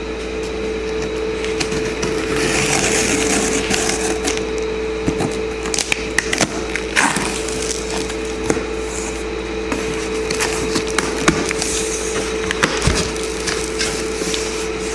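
Cardboard box and packing being handled: rustling and crackling with scattered sharp snaps and clicks, over a steady background hum.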